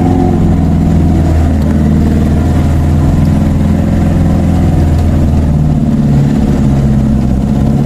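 Car engine pulling up a steep climb, heard from inside the cabin: a steady low drone whose note changes about five and a half seconds in.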